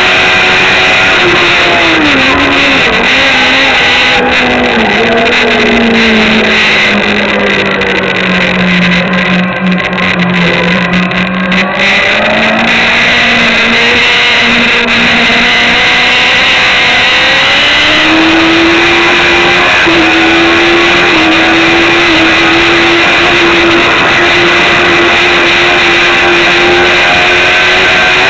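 Sport motorcycle engine running hard at racing speed. Its note drops steadily as the bike slows for a corner in the first third, stays low through the bend, then climbs again and holds higher from about two-thirds in.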